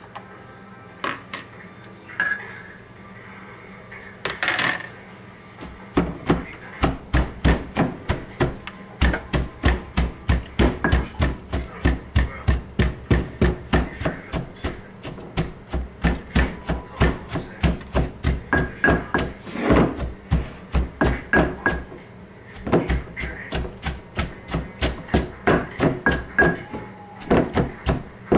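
Wooden pestle pounding green papaya salad in a tall clay mortar: a few scattered knocks at first, then steady strokes about two to three a second from about six seconds in, with a short break about three-quarters of the way through. This is the pounding that bruises and mixes the shredded papaya with its seasonings.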